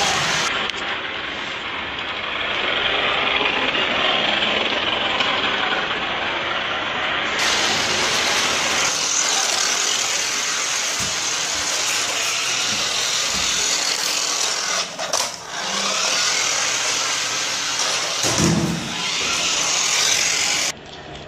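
Small electric motor and gears of a toy remote-control car whirring steadily as it drives, with brief dips near the end and an abrupt cut-off just before the end.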